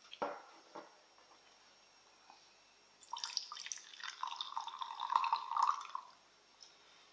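Coffee poured from a vacuum flask into a cup, a splashy trickle lasting about three seconds that starts about three seconds in and then stops.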